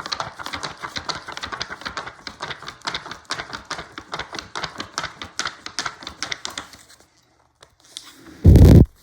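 A fast run of scratchy clicks, several a second, for about seven seconds, then a single loud, low thump near the end.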